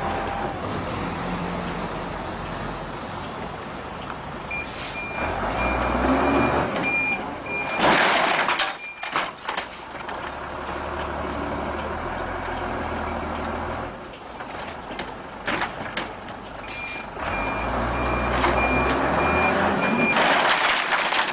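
Truck engine running with its reverse alarm beeping rapidly in two bouts of about three seconds. Each bout is followed by a loud hiss of air, like an air brake being set.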